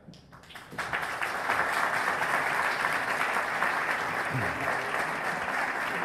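Audience applause: a hall full of people clapping, starting under a second in after a brief hush and holding steady.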